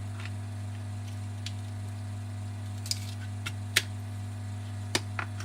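Small tool clicks and scrapes while prying out the iPhone 5's swollen battery, a handful of sharp ticks with the loudest past the middle, over a steady low electrical hum.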